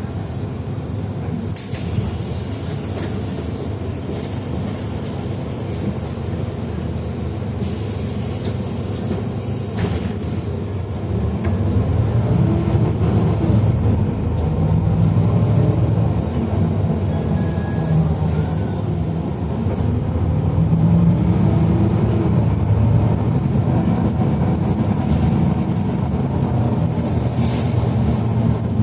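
Engine and road rumble of a moving road vehicle, with the engine note rising and falling and getting louder about twelve seconds in as it picks up speed. Two short hisses cut in near the start and about nine seconds in.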